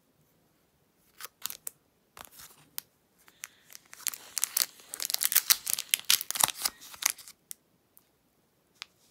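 A foil trading-card pack wrapper being opened. A few sharp crinkles give way to about four seconds of dense crackling and tearing, with one last crinkle near the end.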